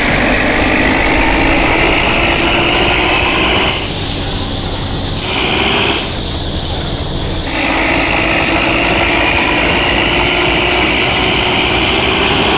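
Fully loaded Isuzu Giga truck's diesel engine pulling under load, with a high whine over it, its pitch climbing slowly. The engine sound drops back twice, about four and six seconds in, for a second or so each time.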